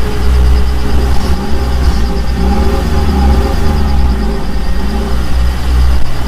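A motor-vehicle engine running steadily and loudly, with a deep rumble and a pitch that rises and falls over and over.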